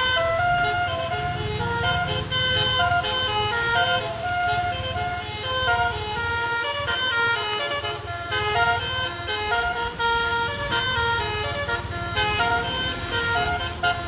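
A bus's Basuri 'telolet' musical horn playing a tune of short stepped notes, one after another without a break, over the low rumble of the bus's engine.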